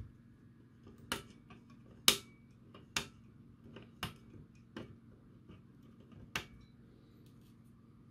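Side cutters snipping the soldered transistor leads off a circuit board: a string of sharp snips, about six loud ones roughly a second apart, with quieter ticks between.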